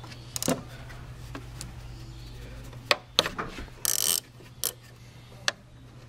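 Wrench working the nut on a car battery's positive terminal clamp: scattered sharp metal clicks and taps, with a short scraping rasp about four seconds in, over a steady low hum.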